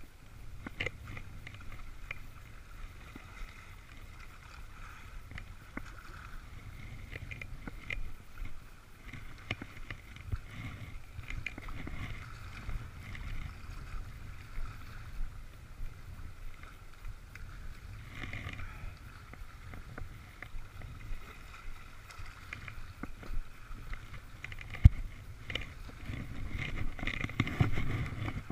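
Choppy water washing and splashing against shoreline rocks, with wind rumbling on the microphone. A single sharp knock about 25 seconds in.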